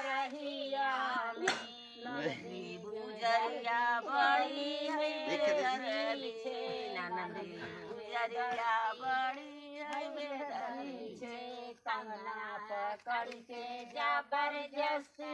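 Women singing a sohar, a north Indian folk song sung to celebrate a childbirth, in a long melodic line with held, wavering notes.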